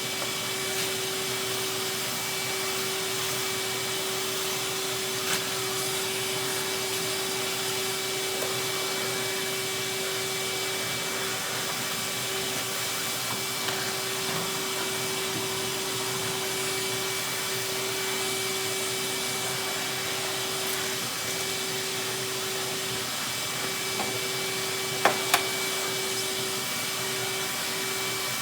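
Vacuum cleaner running steadily with a constant hum. Two sharp knocks come close together near the end.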